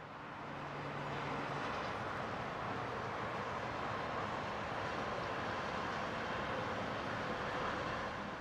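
Steady outdoor background noise at a rail construction site, a faint even hiss of distant traffic and machinery that fades in over the first second and fades out near the end.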